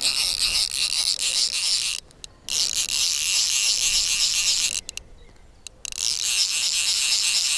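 Fly reel's click-and-pawl drag buzzing as line is pulled off by a running, hooked rainbow trout, in three long spells of about two seconds each with short pauses between.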